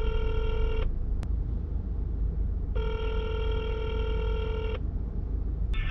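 Telephone ringback tone through a phone's speaker: a buzzy tone about two seconds long, a pause of about two seconds, then a second tone of the same length, as the call rings through after the automated menu. Hold music starts just before the end.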